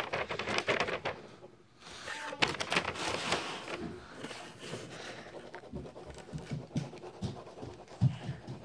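Felt-tip marker scribbling on paper in quick back-and-forth strokes, with soft low knocks of the hand and pen against the paper near the end.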